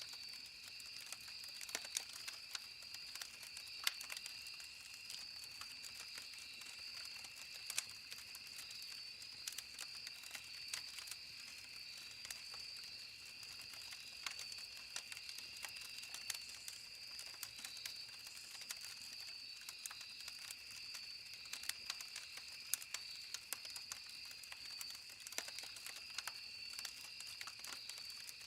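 Campfire burning, crackling with frequent irregular sharp pops, over a steady high-pitched drone in the background.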